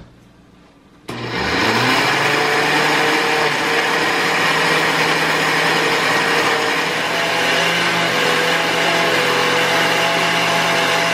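Countertop blender switched on about a second in and running steadily, blending a thick mix of crackers, queso fresco, ají amarillo peppers and milk into huancaína sauce. Its motor hum rises a little in pitch about halfway through.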